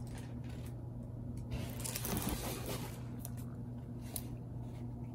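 Plastic crinkling and rustling as a diamond painting canvas with its clear protective film is handled, densest about two seconds in, with a few light clicks, over a steady low hum.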